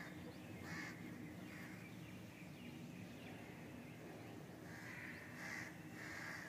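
Birds calling in the background: a short call at the start and another about a second in, then three in a row near the end, with faint chirps in between. A low steady hum runs underneath.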